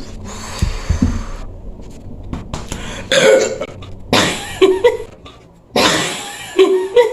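A woman coughing hard, several times, in short loud bursts about a second apart, the strongest four in the second half. It follows gulping down soda in an attempt to belch.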